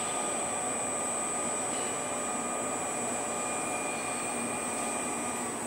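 Electric gear motors of a welding turning roller running steadily, a mechanical hum under a thin, constant high whine.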